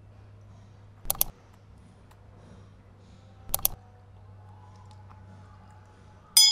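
Mouse-click sound effects from a like-and-subscribe reminder animation: a quick double click about a second in and another about two and a half seconds later. A bell-like notification ding starts right at the end. A faint steady hum lies underneath.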